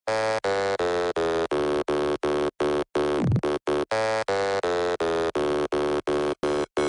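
Electronic dance music intro: a buzzy synthesizer chord chopped into steady, even pulses about two and a half times a second, with a falling sweep about three seconds in.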